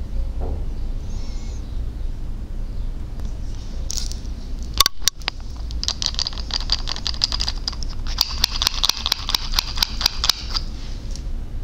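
Wooden toy lipstick handled at a mannequin's lips: one sharp click about five seconds in, then a quick run of light wooden clicks and taps, several a second, for about four seconds. A steady low hum sits underneath.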